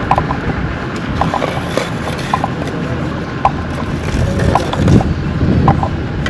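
Road-construction ambience: a steady background din with scattered short clinks and a low engine-like rumble that swells about five seconds in.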